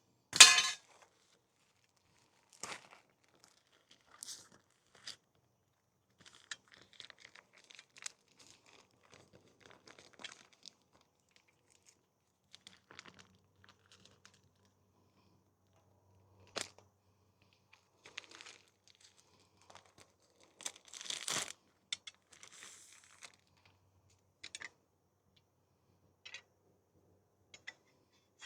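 Scattered clicks, knocks and rustling from handling tools and parts during mower blade work, with a sharp knock right at the start and a louder rattling cluster about three-quarters of the way through.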